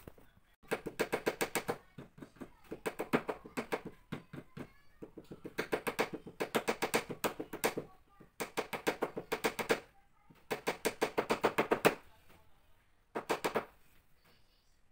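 A screw-driving tool clicking rapidly in short bursts, about ten clicks a second, each burst lasting a second or two, six times over with short pauses between.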